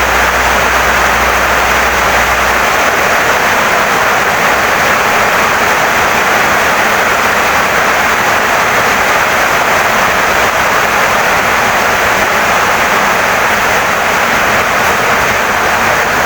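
Heavy rain pouring steadily on a wooden house, a dense even hiss. A low hum sits beneath it and stops a couple of seconds in.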